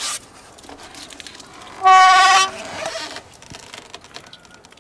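Door of a wooden taiga hut being opened: a short click at the start, then one long, loud creak of the hinges about two seconds in, dying away about a second later.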